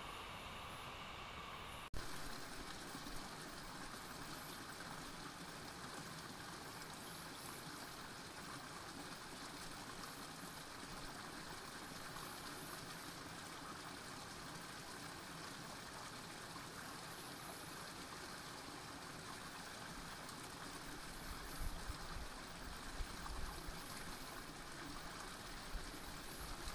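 Steady rush of running water, like a stream, with a sharp click about two seconds in and a few low thumps near the end.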